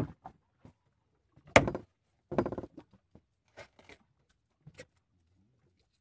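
A knife chopping fish on a wooden cutting board, giving sharp knocks: one loud hit about one and a half seconds in, a quick cluster of smaller knocks just after, and a few faint taps later.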